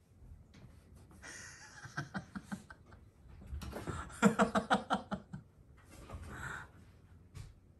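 A person laughing: soft breathy giggles at first, then a run of quick chuckles about four seconds in, then a last breathy laugh.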